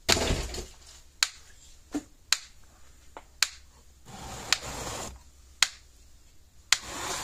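Gallagher BEV2 electric fence energizer pulsing after repair, its transformer giving a sharp click about once a second at an even rate: the unit is working again. Between clicks there is rustling and scraping as the open chassis is handled.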